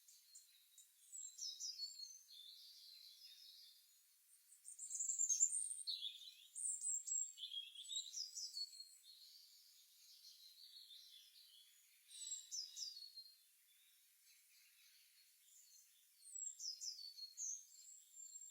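Songbirds chirping and twittering in high-pitched bouts of quick notes, with short lulls between; the loudest bout comes about five seconds in. It is an early-morning chorus.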